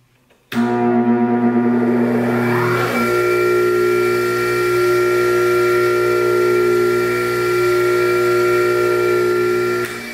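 Bench grinder switched on with its 80-grit stone, now balanced to about 0.06 G peak-to-peak vibration. The motor hum comes in suddenly, a whine rises as the wheel spins up over the first couple of seconds, then it runs at a steady pitch until the hum drops away near the end as it winds down.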